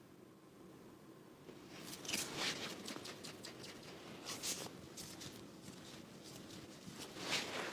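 Irregular bursts of rubbing and rustling, like hands working over skin and clothing during a hands-on chiropractic session. They start about two seconds in, with the strongest near the end.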